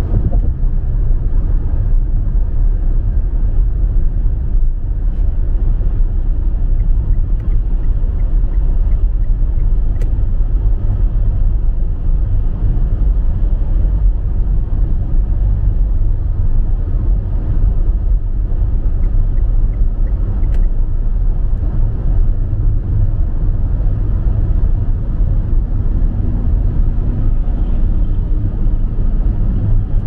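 Steady low rumble of a car driving on a snow-covered highway: engine and tyre noise heard from inside the cabin.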